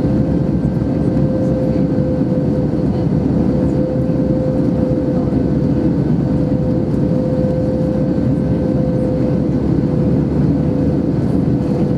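Airbus A320-232 cabin noise heard from a window seat: the engines and rushing air make an even, loud roar, with a steady tone riding over it. The sound does not change in level.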